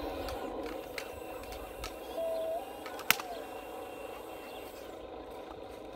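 Radio-controlled bulldozer's small drive motor and gearbox whirring steadily, with one sharp click about three seconds in and a brief whistle-like tone just before it.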